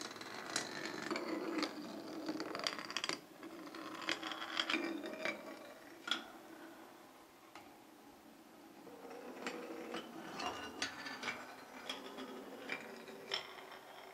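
A marble rolling along wooden toy train track: a rolling rumble broken by sharp clicks and knocks as it crosses the track joints. It dies down partway through, then builds again.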